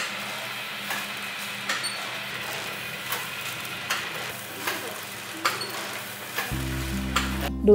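Automatic sachet-packing machine running: a steady hum and hiss with a regular clack about every two-thirds of a second as it cycles through the sachets. Music comes in about a second before the end.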